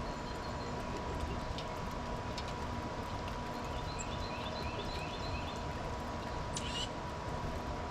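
Small songbirds calling faintly over a steady rushing background: a short run of quick repeated high notes in the middle, then a quick falling call near the end, with a few light ticks and clicks scattered through.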